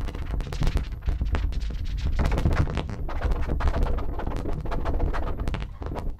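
Live improvised turntable and electronics noise music: a dense run of sharp clicks and glitchy crackles over a steady low rumble.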